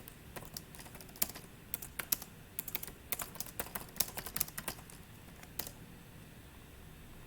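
Typing on a computer keyboard: quick, irregular runs of keystrokes that stop about five and a half seconds in.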